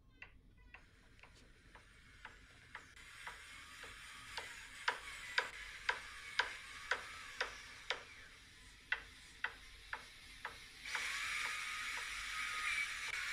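Toy-workshop sound effects: a regular run of sharp mechanical taps or clicks, about two a second, growing louder towards the middle and then fading. About eleven seconds in, a steady hissing noise takes over.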